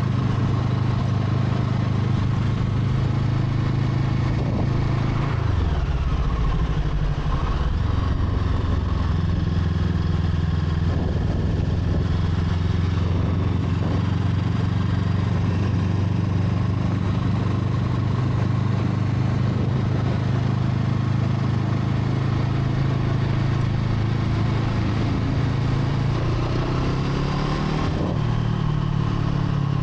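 Brixton Crossfire 500 parallel-twin motorcycle engine running steadily at an even pitch. Its note drops and comes back up about five to seven seconds in, and changes again shortly before the end.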